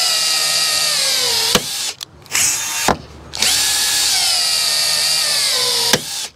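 Cordless drill running in three bursts, its whine sagging in pitch under load and each burst ending in a sharp snap, as blind rivets are pulled and their mandrels break off, riveting a snorkel mounting bracket to the van body.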